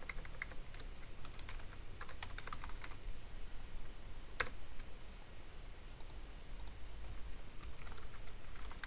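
Computer keyboard typing in short runs of key clicks, with one louder click about four and a half seconds in, over a faint low steady hum.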